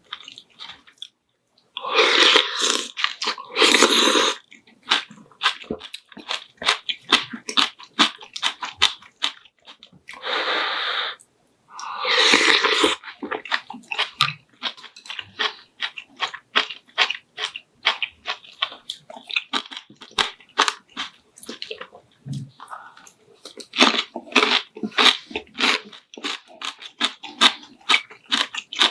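Close-miked eating sounds: steady chewing and crunching of food, with a few louder, longer bursts about two, ten and twelve seconds in.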